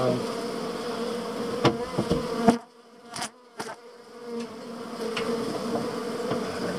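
A colony of bees buzzing in an opened wall cavity: a steady, droning hum with a few sharp knocks. About two and a half seconds in, the hum drops out almost entirely for over a second, broken only by two clicks, then builds back up.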